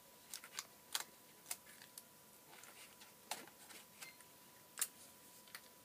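Light handling clicks and taps from a cardboard wheel-and-axle model and sticky tape being worked by hand: about a dozen short, sharp clicks scattered irregularly, with a faint steady hum underneath.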